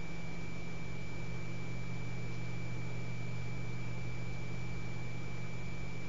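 Steady low hum under an even hiss, with a thin high-pitched whine held throughout; nothing starts or stops.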